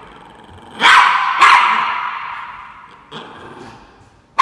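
Norfolk terrier barking: two sharp barks about a second in, half a second apart, then a fainter one near the end, each echoing on in the bare room.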